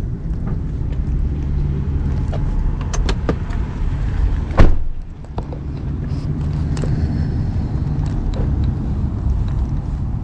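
A car's steady low running rumble with a few light clicks, broken by one loud sharp knock about halfway through.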